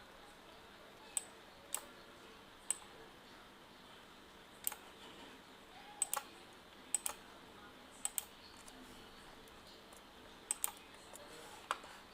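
Scattered clicks from a computer mouse and keyboard, about a dozen in all, several coming in quick pairs like double-clicks, over faint room hiss.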